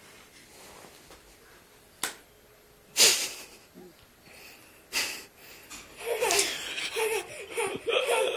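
A toddler laughing, continuous over the last couple of seconds. Before it come a few sudden loud sounds about two, three and five seconds in.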